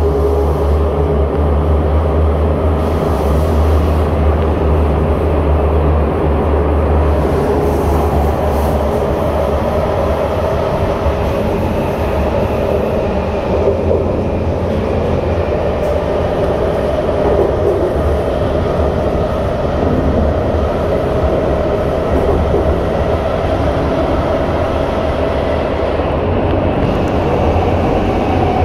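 Inside a C151 metro carriage refitted with permanent magnet synchronous traction motors, running along the track: a steady rumble of wheels on rails with a motor whine that moves to a higher pitch about a third of the way in.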